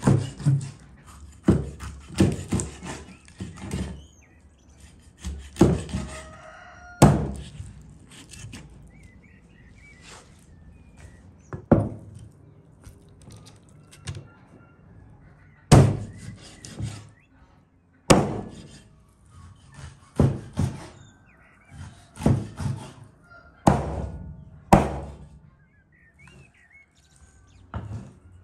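Chopping blows on wood: about eighteen heavy thunks at an irregular pace, some in quick pairs and some seconds apart. Birds chirp faintly in the gaps.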